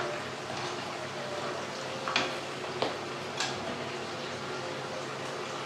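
Chicken pieces frying in a pan on a gas stove, with a steady sizzle. A utensil stirring them strikes or scrapes the pan three times in quick succession a little over two seconds in.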